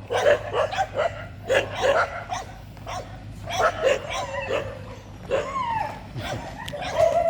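Street dogs barking and yipping in short bursts, with whining in between.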